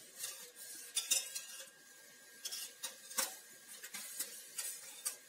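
Steel ladle scraping and clinking against a stainless steel saucepan as a thick, cooking thandai mixture is stirred: irregular clinks every half second to a second.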